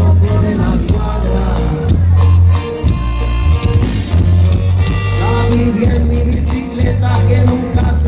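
Live band music with a strong bass line under a steady beat, with some singing.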